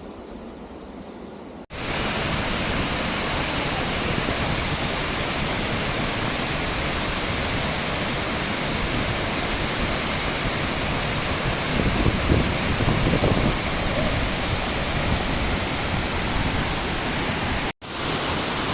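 Waterfall's steady rushing water, a loud, even hiss. A quieter hiss for the first second and a half, then it comes in abruptly, with a short cutout near the end.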